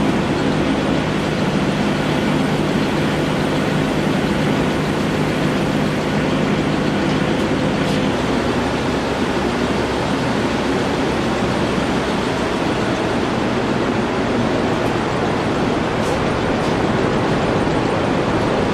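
Steady rushing noise of a powder-coating spray booth: the extraction fan running and compressed air from the electrostatic powder gun as powder is sprayed onto a bike frame. A low hum runs under it and changes about eight seconds in.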